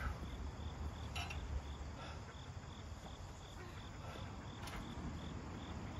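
A cricket chirping steadily, short even chirps about three a second, with a couple of light knocks in between.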